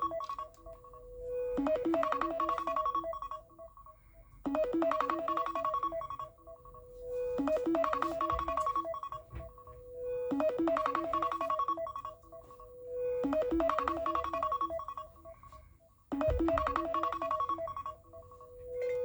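iPhone ringtone playing on repeat: the same short melodic phrase comes back about every three seconds, each ending in a held note that fades before the next phrase starts.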